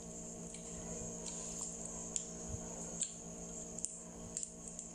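Soft, squishy chewing of a mochi rice cake with the mouth closed, with a few faint mouth clicks over a steady low hum.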